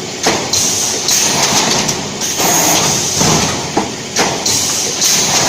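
Vertical EPS 3D panel wire mesh welding machine running through its working cycle, a burst of mechanical clatter and clicks repeating about every two seconds.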